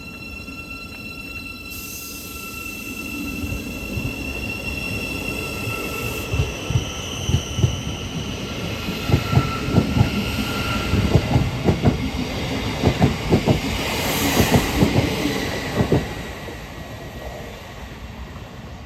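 A train running through the station: steady high-pitched tones at first, then a long run of clicking from the wheels over the rail joints that grows louder and dies away about three seconds before the end.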